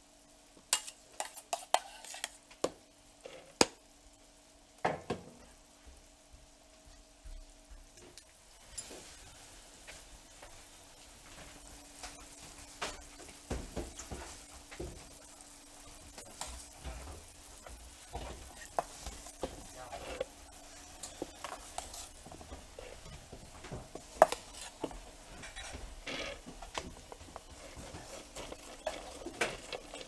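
A knife clinking and scraping in a metal bowl, then spreading cream over a cake: soft, steady scraping and smoothing broken by scattered sharp clinks, one loud clink about 24 seconds in. A steady low hum sounds under the clinks for the first eight seconds or so.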